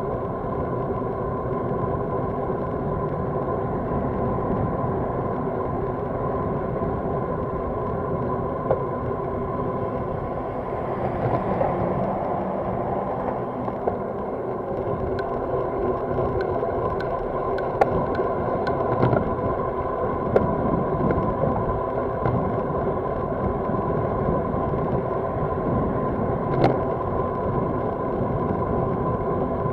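Steady wind and road noise on the microphone of a camera mounted on a road bicycle riding at about 30 km/h, with road traffic passing. The noise swells about 11 to 13 seconds in as the bike nears heavy trucks and a car, and a few sharp clicks come later.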